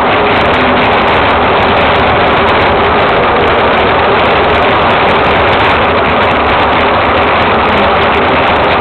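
Soapbox cart running fast downhill: a steady, loud rushing noise of wind and wheels on the road.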